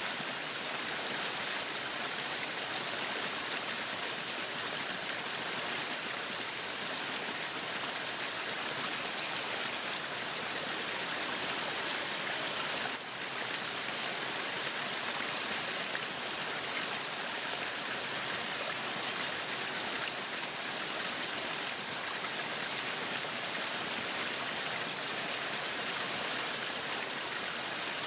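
Meat sizzling on a yakiniku grill: a steady, even sizzling hiss with a fine crackle, dipping briefly about halfway through.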